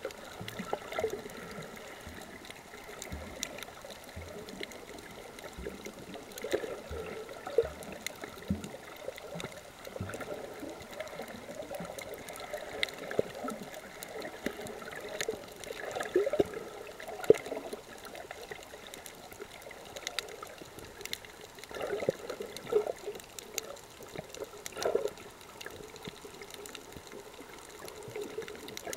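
Water moving and gurgling around a camera recording underwater, an uneven wash of sound with many scattered small clicks.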